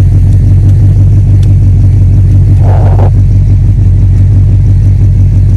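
A steady low buzzing over the pickup's idling engine, with a brief louder noise about three seconds in; the buzzing is put down to a shorted turn-signal (blinker) switch.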